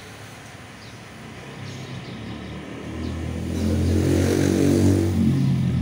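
A motor vehicle engine passing by, growing louder to a peak about four seconds in and then fading.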